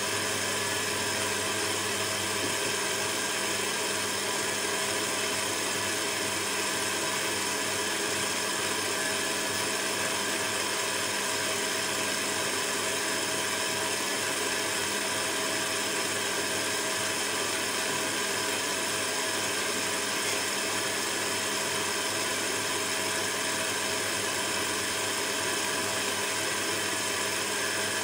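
Electric stand mixer running at a steady speed, its beater creaming margarine batter in a stainless steel bowl: a constant motor hum and whine that does not change.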